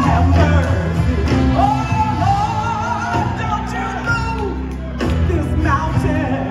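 A woman singing a gospel song into a microphone, her voice gliding through long held, ornamented notes, over an instrumental accompaniment of sustained low notes.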